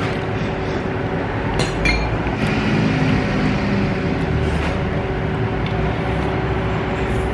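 Steady restaurant room hum with a couple of sharp clinks of eating utensils about a second and a half in.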